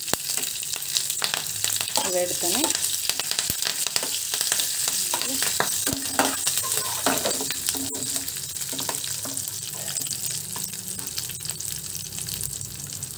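Fresh curry leaves sizzling and crackling in hot oil with mustard seeds, cumin and dried red chillies for a tempering (tadka), a steel spoon stirring and scraping the steel kadai.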